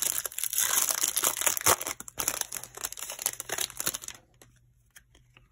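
Foil wrapper of a baseball card pack being torn open and crinkled by hand, a dense crackling rustle that stops about four seconds in.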